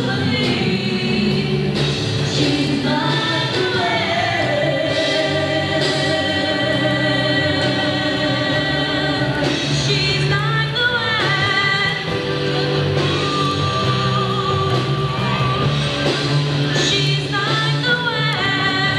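Live rock combo playing, with singers holding long, wavering notes over a steady bass line.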